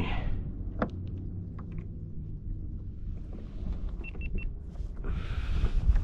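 Steady low rumble of wind on the microphone, with a few small knocks of fish and gear being handled in a kayak. Three quick high beeps sound about four seconds in, and a rush of noise comes near the end.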